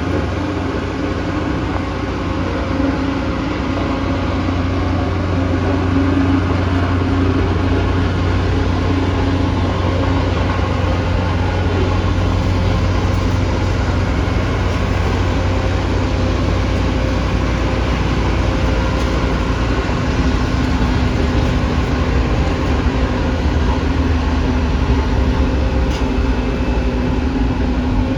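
Bulldozer's diesel engine running steadily with a deep, low drone, growing a little louder over the first few seconds.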